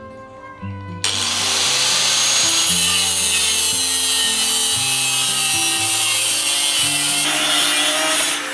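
Electric angle grinder's cut-off disc cutting through a rusty steel rebar rod, starting suddenly about a second in and grinding steadily until near the end.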